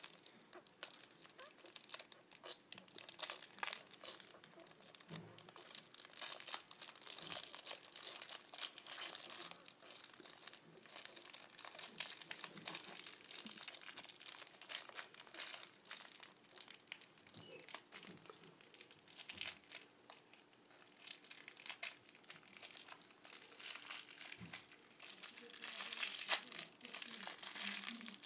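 Thin plastic wrapper of a Kinder Surprise toy crinkling in a child's fingers as the small bag is worked open, in many irregular crackles that grow louder near the end.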